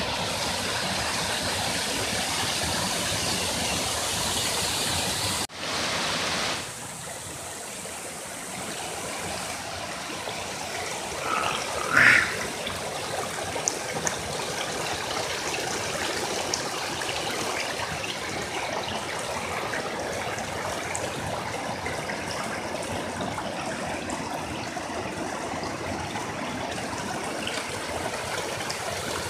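Stream rushing and splashing over rocks, a steady water noise that drops abruptly in level about six seconds in. One brief, rising high-pitched chirp about twelve seconds in.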